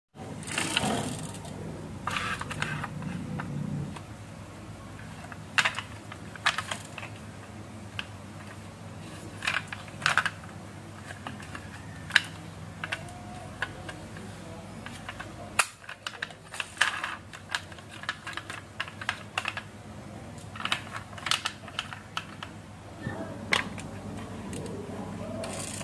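Irregular small clicks and knocks from a toy Volkswagen pickup truck being handled: its door opened and shut, and the toy set down on a wooden floor. A steady low hum runs underneath.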